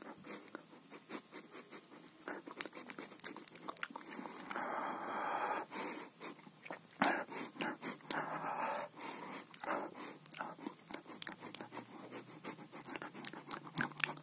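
Cat sniffing and licking at the sealed lid of a tray of pâté: quick irregular clicks throughout, with a few breathy bursts of sniffing midway.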